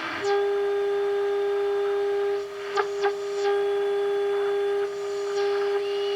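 A steady mid-pitched test tone from a 1948 Emerson AA5 radio's speaker: the modulated signal-generator signal being received during alignment near the top of the AM band. It dips briefly with a couple of clicks about halfway through and again near the end, as the tuning is touched.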